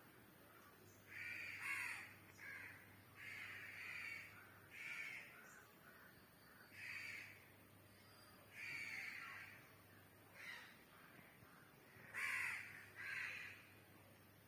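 A bird calling repeatedly: about ten harsh calls, each a fraction of a second long, at irregular intervals.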